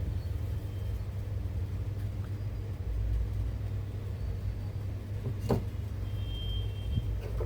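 Steady low electrical hum from workbench equipment, with a sharp tap about five and a half seconds in and a fainter one near the end.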